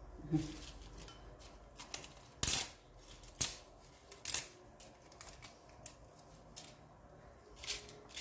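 Dried bay leaves being cut up into small pieces: a handful of crisp, irregular snaps and crackles, the loudest about two and a half seconds in, with quieter stretches between.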